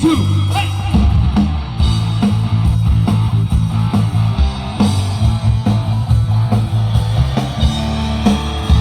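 Live rock band playing an instrumental break with no singing: guitar over a steady, pulsing bass line.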